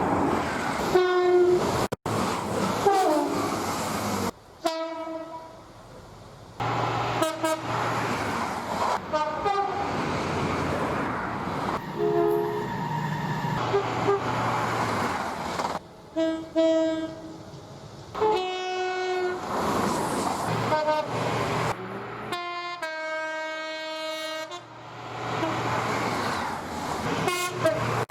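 A rapid series of train horn blasts, two-tone horns sounding short and long notes, one clip cut abruptly into the next. Between and under the blasts runs the rush and rumble of trains passing.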